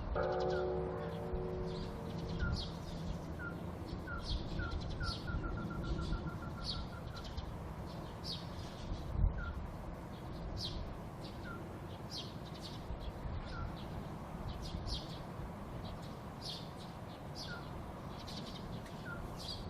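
Unidentified animal calls, the mysterious cries the recording was made for: short chirps repeating irregularly, with a quick run of them about five seconds in, over brighter high calls about once a second. A bell's ringing tone fades out over the first two seconds.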